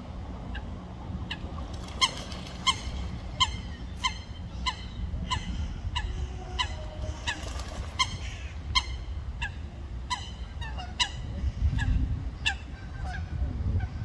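Coot calling over and over during a fight with another coot: a long run of short, sharp, slightly downward-bending calls, about one every two-thirds of a second, that stops about a second before the end. A low rumble runs underneath.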